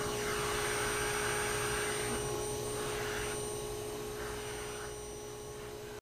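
Canister vacuum cleaner running with a steady motor hum while its hose and grooming nozzle are used on a long-haired cat's coat. The rush of air rises and falls a few times and slowly fades toward the end.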